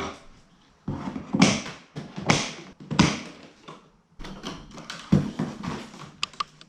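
Handling noises: a run of knocks, taps and rustles at uneven intervals, with a few sharp clicks near the end.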